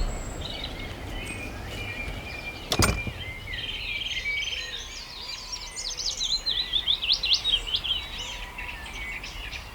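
Small songbirds singing, with quick chirping phrases that grow busier in the second half. One sharp click sounds about three seconds in.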